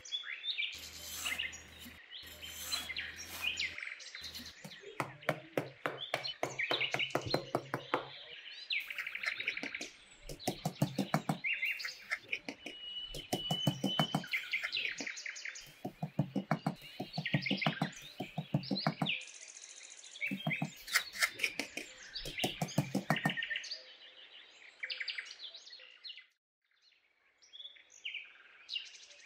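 A small trowel scraping and digging into damp sand in repeated bursts of quick strokes, with birds chirping in the background.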